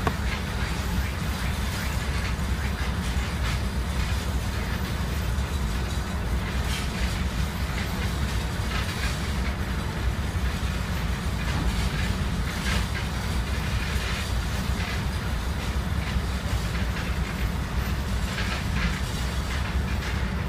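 Steady low rumble of a ferry's engines running at the dock, with a few light metallic rattles, such as chains on the hoists lowering the dock ramp.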